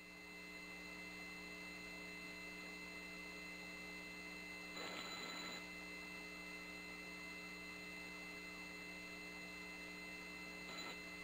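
Faint steady electrical hum with several constant tones on the open mission audio loop between callouts, with a brief faint hiss about five seconds in.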